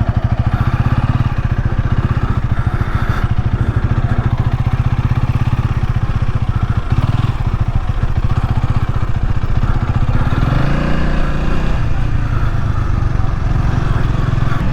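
Honda Rebel 300 motorcycle's single-cylinder engine running just after start-up, with a fast even pulse. About ten seconds in the revs rise, then settle again.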